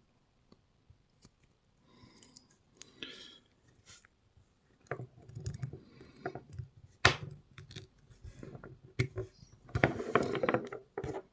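Small metal clicks and clinks from taking apart an old pin tumbler lock and working its tailpiece loose. Scattered sharp clicks and handling noise, with one sharp click about seven seconds in and a quick run of clicks near the end.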